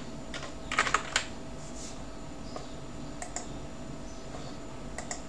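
Computer keyboard keystrokes: a quick run of key clicks about a second in while a search term is typed, then a few scattered single clicks, over a faint steady hum.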